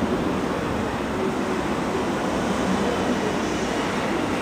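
Steady background noise with a faint hum running through it.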